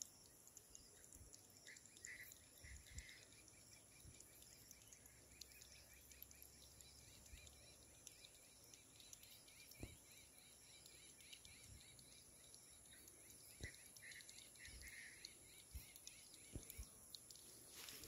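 Near silence: faint outdoor ambience with a steady high-pitched whine, faint chirps about two seconds in and again near the end, and a few light clicks.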